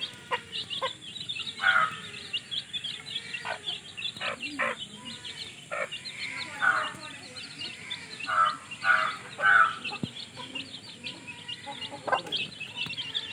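Mother hen clucking to her brood while the chicks keep up a steady high peeping. There are several short louder calls, three in quick succession a little after the middle.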